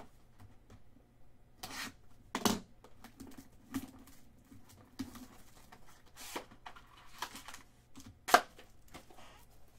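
Trading card box and foil pack wrappers being torn open and crinkled by hand: scattered short tears and rustles, with one sharper, louder tear or snap a little after eight seconds in. A faint steady low hum sits underneath.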